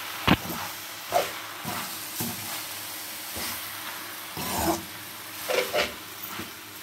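Slotted spatula stirring and scraping through elbow macaroni and chicken in a steel frying pan, with a sharp knock against the pan just after the start and several more scrapes and taps, over a steady sizzle of frying.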